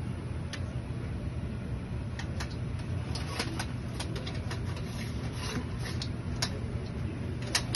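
Metal clicks and knocks of a folding army cot's frame and end bar as they are handled and fitted into the cot's sides, scattered through the middle with a sharper click near the end, over a steady low rumble.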